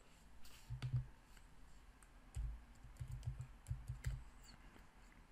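Faint typing on a computer keyboard: a few keystrokes about a second in, then a longer run of keystrokes in the middle.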